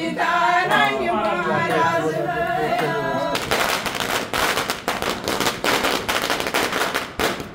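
Women singing a traditional Kashmiri wedding song for the first three seconds or so. Then a string of firecrackers goes off in a fast, dense crackle of bangs that cuts off suddenly near the end.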